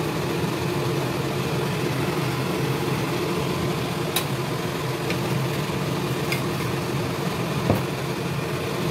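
A steady low mechanical hum with a faint sizzle of sugar melting in hot oil in a wok, broken by a few sharp ticks a couple of seconds apart.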